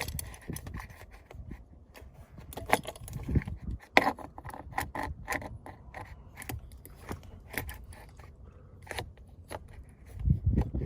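Irregular metallic clicks and scrapes of a long tool being poked into the release hole at the back of a steering wheel to unlatch the airbag.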